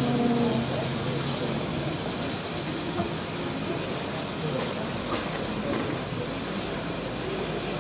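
Steady hiss of steam from Southern Railway King Arthur class 4-6-0 No. 777 Sir Lamiel, with faint voices in the background.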